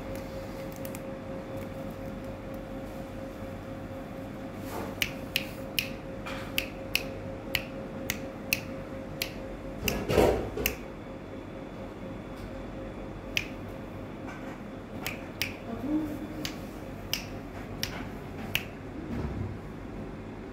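A series of about twenty sharp, irregular clicks starting about five seconds in, with one louder, lower sound near the middle. A faint steady hum runs under the first half.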